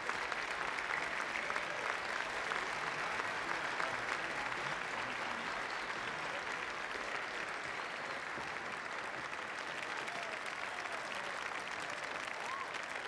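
A large crowd applauding steadily, the clapping easing off slightly after the first few seconds.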